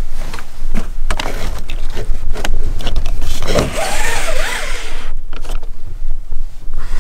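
A ribbed fabric van window cover being handled and pulled away from the window: a run of clicks and rustles, then a longer sliding swish about three and a half seconds in, with a few more clicks after.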